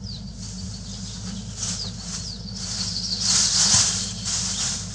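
Poultry flapping their wings in a wire-mesh coop, loudest in a flurry about three seconds in, over short falling bird chirps.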